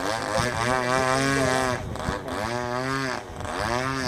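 Single-cylinder two-stroke DLE-20 gas engine of a radio-controlled Big Stick 60 plane in flight, its pitch swooping up and down several times as the plane manoeuvres.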